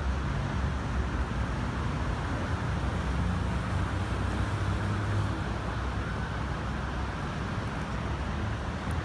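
Steady outdoor background rumble with a soft hiss, heaviest in the low end and without distinct events.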